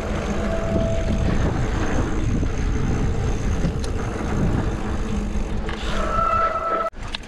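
Mountain bike riding down a dirt trail: steady low rumble of wind buffeting the camera mic and tyre noise, with two brief high squeals, one about a second in and one near the end.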